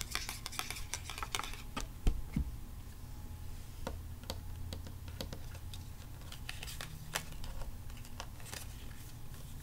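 Long fingernails tapping and clicking on a trading card, irregular light taps with one louder knock about two seconds in, over a steady low background hum.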